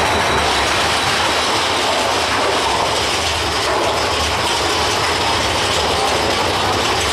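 Big Thunder Mountain Railroad mine-train roller coaster running through a tunnel: a steady, loud mechanical clatter and ratcheting of the train on its track.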